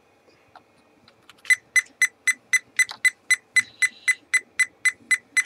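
Fluke 87V multimeter's input alert: a short high beep repeating about four times a second, starting about a second and a half in. It warns that a test lead is in the amps or milliamps jack while the dial is not set to a current function.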